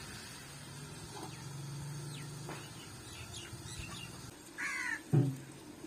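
A crow caws once near the end, followed at once by a brief, louder low sound. A faint low hum runs under the first few seconds.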